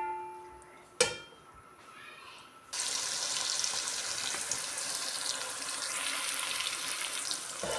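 A metal ladle knocks once against a metal cooking pot with a short ring, then about three seconds in a steady sizzle starts suddenly: chopped onions frying in hot ghee.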